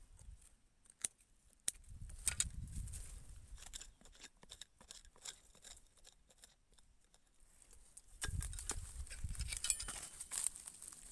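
Gloved hands scraping and clawing dry soil and leaf litter away from the roots of a wild Sageretia shrub being dug out by hand. There are sharp clicks and crackles of dry twigs and debris, a couple of distinct clicks about a second in, and a denser burst of crackling and scuffing near the end.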